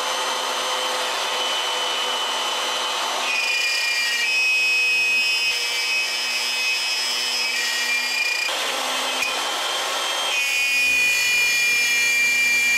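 Table-mounted router running with a steady high whine while its bit cuts a slot in 3/4-inch plywood. Rough cutting noise comes and goes as the board is fed.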